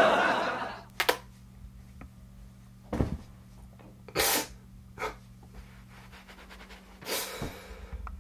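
A young man sniffling and breathing hard as he cries: about five short, hissy sniffs and breaths a second or two apart, the loudest about four seconds in. A voice fades out at the very start, and a faint steady hum lies under it all.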